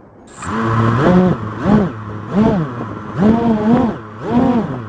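FPV racing quadcopter's electric motors being throttled up and down in five short blips while waiting at the start line, each a rising and falling whine over a steady hiss.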